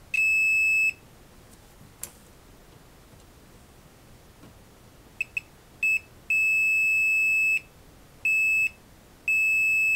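Digital multimeter in continuity mode beeping as its probes touch vias on a motherboard: a steady high-pitched beep near the start, a faint click, then a few short chirps and three longer beeps in the second half. Each beep signals an electrical connection through a via repaired with a soldered jumper wire.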